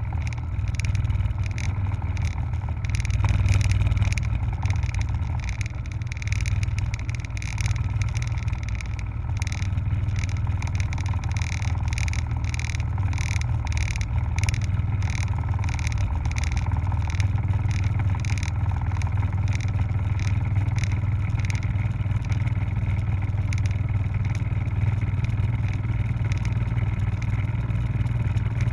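Helicopter in flight: a steady low drone of engine and rotor, with a fast, regular pulsing from the rotor blades.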